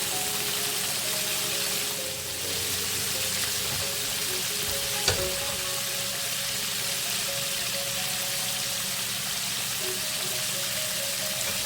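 Coated chicken quarters deep-frying in oil, a steady sizzle, with one sharp pop about five seconds in.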